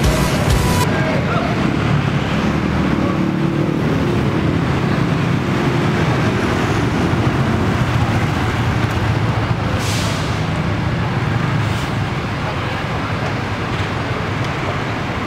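Scania K410 coach's diesel engine running as the bus creeps through a low-speed manoeuvre, with two short hisses of air about ten and twelve seconds in.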